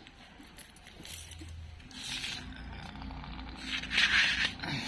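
Plastic bowl full of dry pet kibble being handled, pulled along and lifted off a tile floor: scraping with the kibble rattling. It comes in two bursts, the second, about four seconds in, the louder.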